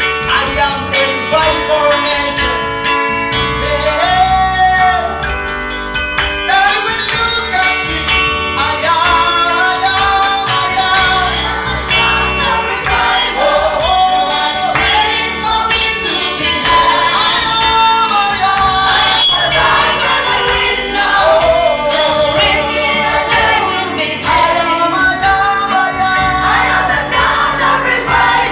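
Live gospel praise singing: a group of voices singing a melody over keyboard and a steady bass beat.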